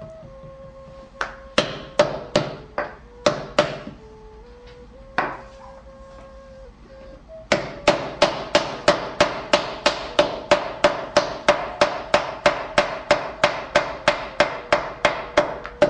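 Wooden mallet beating a slab of clay flat against a hardwood table, which compresses the clay into an even slab. First come a few scattered blows, then from about halfway in a fast, even run of strikes. Faint background music plays underneath.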